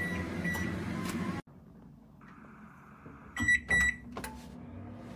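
Toshiba countertop microwave oven running with a steady hum, which cuts off suddenly about a second and a half in. Near the middle come two short electronic beeps in quick succession, followed by a single click.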